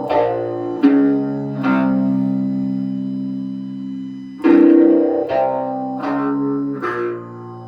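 Electric guitar, a Les Paul Custom-style guitar through an Orange amplifier, playing a slow doom riff. Low chords are struck about six times and left to ring, one held for nearly three seconds.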